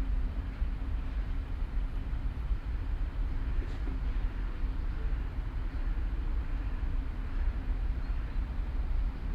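City park ambience: a steady low rumble of distant city traffic, with a faint hum and a couple of soft ticks.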